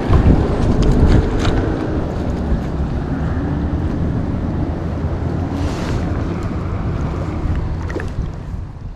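Wind buffeting the microphone, a steady low rumble that fades out near the end.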